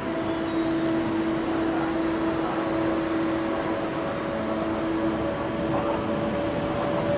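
Electric passenger train at a station platform, giving a steady electric hum with two held tones over a haze of running noise. The lower tone fades about five seconds in.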